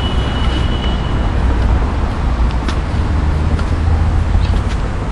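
Tennis warm-up rally on a clay court: a few short, sharp pops of the ball off the racket and court, about one a second, over a loud, steady low rumble that is the loudest sound throughout.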